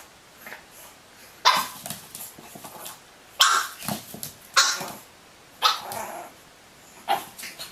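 A pet animal giving five sharp, loud calls, each starting suddenly, about a second apart.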